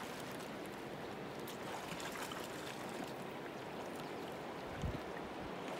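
River water flowing and lapping over the rocks of a shallow bank, a steady rushing wash with faint small splashes, and a brief low bump near the end.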